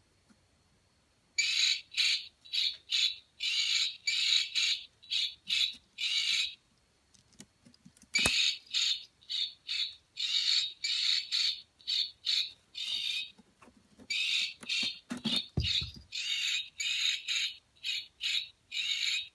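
A bird squawking harshly over and over in short calls, with two brief pauses. A sharp click comes about eight seconds in and a low thump a little past the three-quarter mark.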